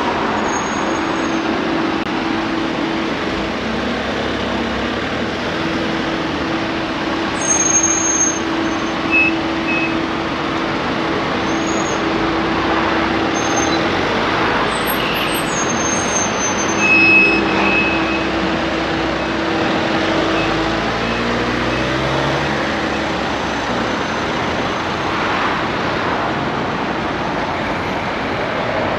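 Road traffic on a busy street: a steady rush of passing vehicles, with a low engine hum that holds for most of the time and dies away with a falling pitch about 21 seconds in. A few short high chirps sound in the middle.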